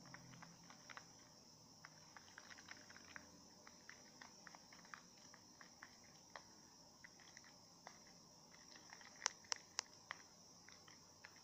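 Plastic spoon stirring slime in a clear plastic cup: soft, irregular clicks and squishes as the mixture is worked, with three sharper taps in quick succession about nine seconds in.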